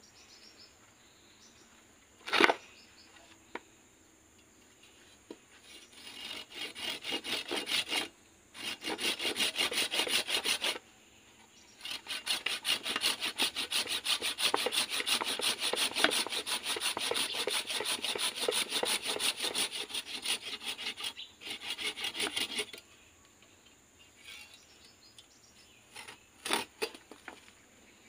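Hand saw cutting through a thick anting putri (Wrightia religiosa) root on a wooden block. It goes in three spells of quick, even back-and-forth strokes, the last lasting about ten seconds. A sharp knock comes about two seconds in and a few lighter knocks near the end.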